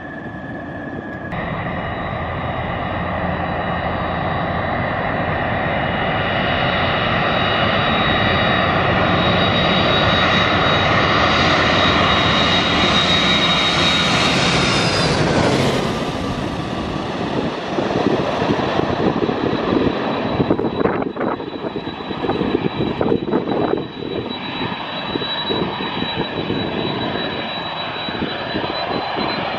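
Boeing 767 jet airliner flying low overhead on approach with landing gear down: engine roar and a high whine grow louder for about fifteen seconds, drop sharply in pitch as it passes over, then a rougher, fluctuating roar carries on as it moves away.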